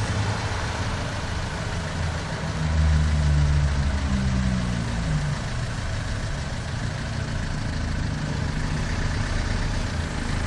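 Road traffic on a wet street: engines and tyre noise. About three seconds in, one vehicle's engine gets louder and rises in pitch as it accelerates past close by, then fades back into the traffic.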